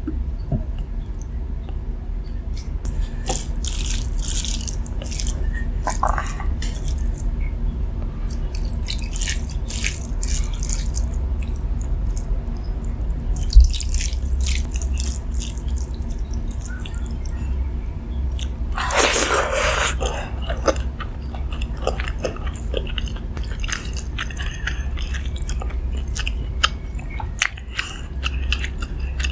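A person eating close to the microphone: crisp crunching bites and chewing in repeated short clusters, with a longer, louder crackling crunch about two-thirds of the way through.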